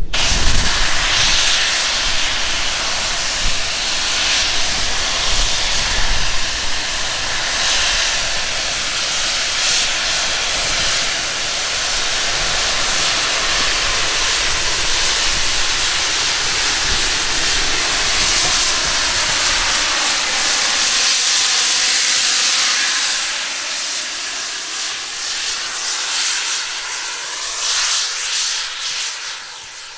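Loud, steady hiss of steam escaping from a Hunslet saddle-tank steam locomotive, with no exhaust beat. It eases off over the last several seconds.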